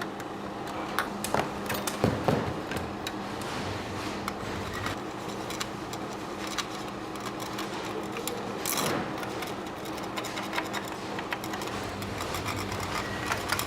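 Workshop noise: a steady machine hum with frequent small clicks and taps, a few louder knocks about two seconds in, and a brief rush of noise just before nine seconds.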